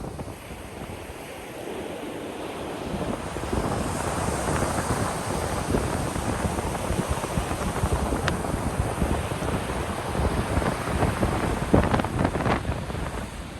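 Ocean surf breaking on a beach, a wave swelling in about three seconds in and fizzing across the sand before easing off near the end, with wind buffeting the microphone.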